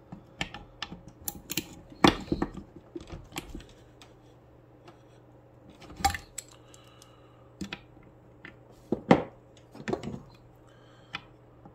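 Metal hand tools clicking and clinking against a chainsaw crankcase as a socket and ratchet are worked onto a stuck case bolt: scattered sharp clicks, with louder knocks about two, six and nine seconds in.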